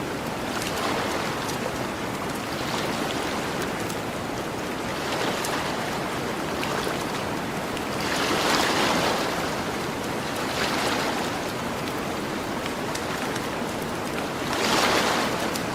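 Gentle ocean waves washing onto a beach, the surf swelling and fading every few seconds, loudest about halfway through and again near the end. Faint crackles of a campfire run underneath.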